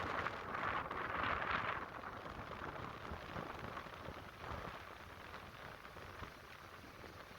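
Atlantic surf breaking on the beach: a wave's crash and rushing wash, loudest over the first two seconds, then easing into a softer steady hiss.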